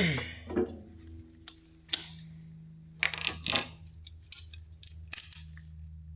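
Scattered knocks, clinks and scrapes of someone moving about and handling things, over a steady low hum. The loudest knock comes right at the start, with a cluster of shorter clinks about three seconds in and more near the end.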